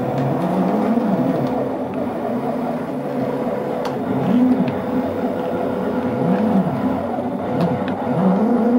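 Stepper motors of a 3D-printed six-axis robot arm whirring as its joints move, the pitch rising and falling with each speed-up and slow-down, four times over. A steady hum runs underneath.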